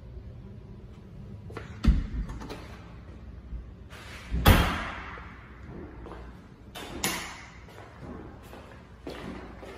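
A few sharp knocks and thumps, the loudest about halfway through, each ringing on briefly in a bare, unfurnished room.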